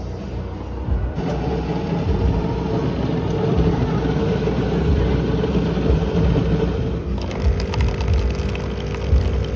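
de Jong Duke Nio 20.2a FM espresso machine at work on a cup: a rough, grinding mechanical noise starts about a second in, then near the end changes to a steady hum with fine rapid ticking as the brewing stage takes over.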